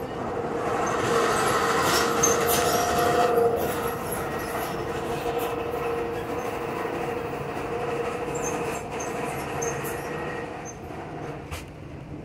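Amtrak Southwest Chief passenger train running at speed, heard from inside a passenger car: a steady rumble and rattle of the ride with a high, steady squeal from the wheels. The squeal is loudest in the first few seconds, then eases, and there is a single sharp click near the end.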